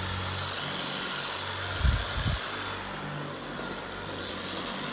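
A small motor running steadily, a hum with hiss, with two low thumps about two seconds in.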